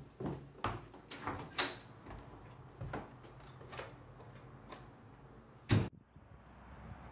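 Footsteps down a stairway and a front door being unlatched and opened, a knock or click every half second to a second, one of them with a short metallic ring. One loud thump near the end, then a steady outdoor hum.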